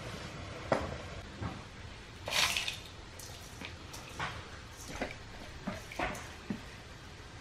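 Ground nuts poured from a plastic tub into a steel bowl: scattered light clicks and patters, with a short louder rush about two and a half seconds in.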